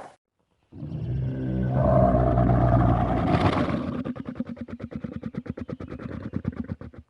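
A low animal call: a growling rumble that breaks into a rapid rattling pulse of about ten beats a second, then fades out.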